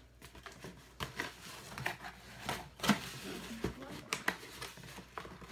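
Scattered light taps and scrapes of a white cardboard shipping box being handled while a pencil is pushed through punched holes to mark the flap beneath.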